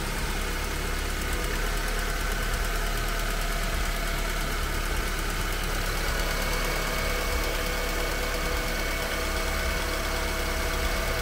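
Honda Civic 1.8-litre inline-four engine idling steadily, running on a newly installed alternator that is charging.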